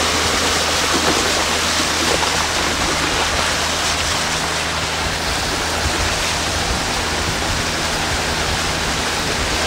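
Motorboat running at speed on a river: a steady loud rush of water and air over the low, even hum of the boat's motor.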